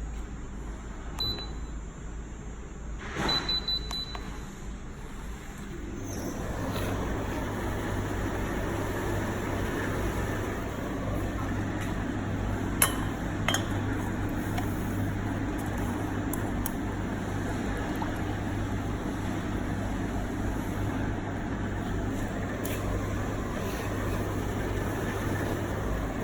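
Tumble dryer control panel giving short electronic beeps as it is operated, then the dryer starting about six seconds in and running steadily with a low motor hum and fan noise, with a couple of sharp clicks partway through.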